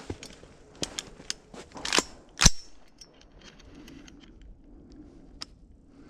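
Footsteps crunching on snow, then a single sharp metallic clack about two and a half seconds in from the hunter's AR-style rifle being handled, with a few faint ticks after it.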